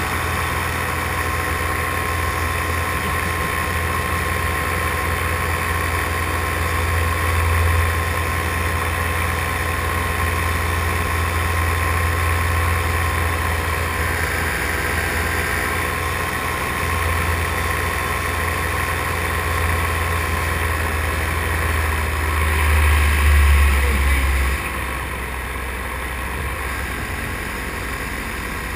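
Paramotor engine and propeller running steadily in flight, with wind rushing past the microphone; the engine note swells briefly a few seconds before the end, then settles slightly lower.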